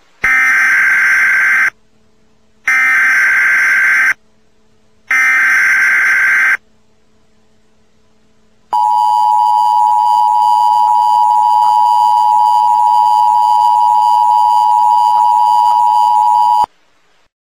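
Emergency Alert System tones: three identical bursts of the SAME digital header, each a buzzing data burst about a second and a half long, then after a short pause the steady two-tone EAS attention signal, held for about eight seconds and cutting off sharply. Together they mark the start of an emergency broadcast, here a child abduction (AMBER) alert.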